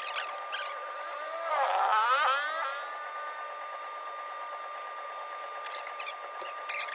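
Electric hair clippers running with a steady high hum. About a second and a half in, a louder sound rises in pitch for about a second.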